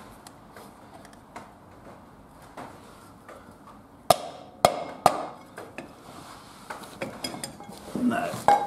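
Light taps, then three sharp knocks in quick succession about four seconds in and more lighter knocks near the end, as a cast-iron rear brake drum is tapped with a rubber mallet and worked against new brake shoes. The drum will not go on because the lip on its edge catches the shoes, and the seized adjuster leaves too little clearance.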